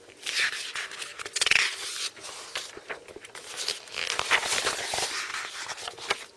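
Paper pages rustling and crinkling as an exam paper is turned over and handled, in two main bouts with short crackles and scrapes.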